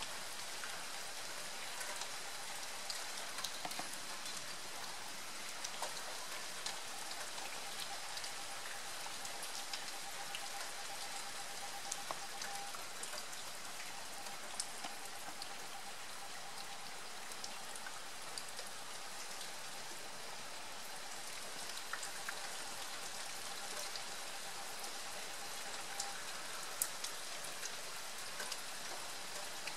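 Steady rain falling: an even hiss with many scattered drops ticking sharply on nearby surfaces.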